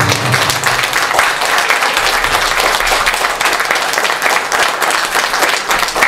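Audience applauding, a dense, steady run of clapping that starts as the dance music stops.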